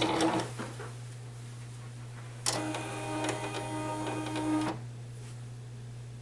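Silhouette Cameo digital cutting machine running a Foil Quill foiling pass: its stepper motors whine for about two seconds, from roughly two and a half seconds in, as the carriage drives the heated pen. A steady low hum runs underneath.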